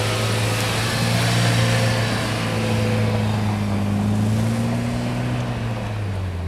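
UAZ Patriot SUV's engine pulling steadily under load as it ploughs through deep snow, with a hiss of churned snow from the tyres. The engine note rises slightly, then eases off and drops about six seconds in as the vehicle moves away.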